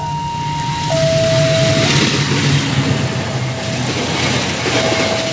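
A two-tone warning alarm alternating between a high and a low note, each held about a second, loud at first and fainter after about two seconds. Under it is a low engine rumble, and a rushing noise grows from about a second in.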